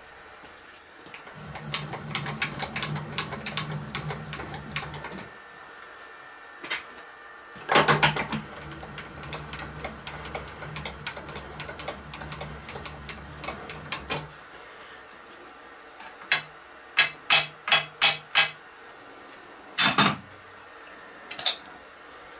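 Milling machine knee traversing on its Z axis: a steady motor hum with gear clicking in two runs of about four and six seconds, then about six short jogs in quick succession and one louder jog near the end. The travel is being checked against a dial indicator for parallel on the Z-axis scale mount.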